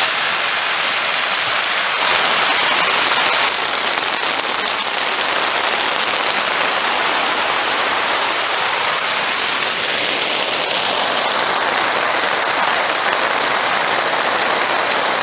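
Torrential downpour: heavy rain falling steadily on the tent fly and the ground, heard from just inside the tent's open door.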